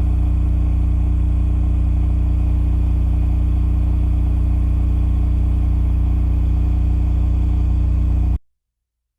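Cummins RS20A standby generator running steadily under load at 3,600 RPM, heard from about 7 meters: an even, low engine hum with no change in pitch. It stops abruptly near the end.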